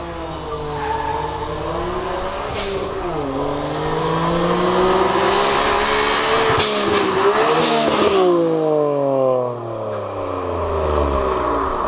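Suzuki Cappuccino's turbocharged 657 cc inline three-cylinder, built with a bigger turbo, revving up hard under acceleration, heard from inside the cabin. Its pitch drops at a gear change about three seconds in, climbs again, then falls away after about eight seconds as the car slows. Short bursts of hiss come around the shifts.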